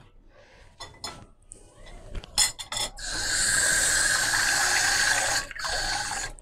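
A few light clinks of dishes, then water poured into a steel pot of batter in a steady stream for about two and a half seconds, with a shorter pour near the end.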